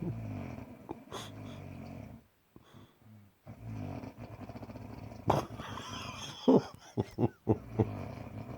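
A sleeping person snoring: two long, low, rattling snores, the first about two seconds and the second about five, with a second of quiet between them. The second snore is broken by several sharp, louder catches.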